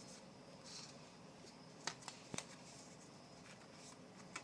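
Faint rustle of trading cards being handled and flipped through, with a few light clicks, two close together about two seconds in and another near the end.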